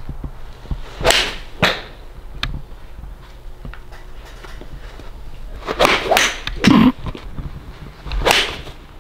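Golf club swung at full speed, whooshing through the air and striking the ball off a driving-range mat: about a second in, again around six seconds, and once more near the end.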